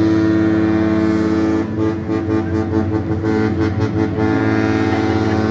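The Norwegian Epic cruise ship's horn sounding one long, deep blast made of several tones together. The tone wavers and turns rough for about two seconds in the middle, then steadies again.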